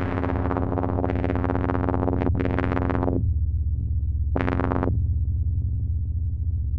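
Electronic synthesizer sound generated in Max/MSP, its control taken from photoresistors reading the light of a TV screen: a steady low drone with a brighter, fuller layer over it for the first three seconds and again briefly about four and a half seconds in.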